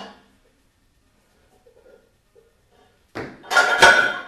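Iron weight plates on a loaded Plateau Buster grip handle clanking and rattling for about a second near the end as the handle is gripped and shifted, with a brief knock right at the start.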